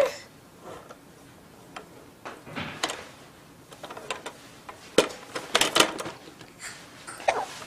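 Scattered plastic clicks and clacks from the toys of a baby's Evenflo Exersaucer activity centre as the baby plays, with a brief vocal sound from the baby near the end.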